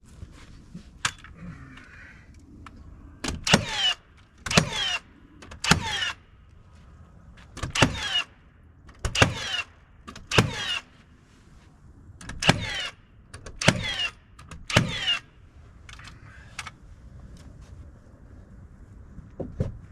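Nail gun driving nails into poplar siding boards, about nine shots in quick succession, each a sharp bang with a short falling whine.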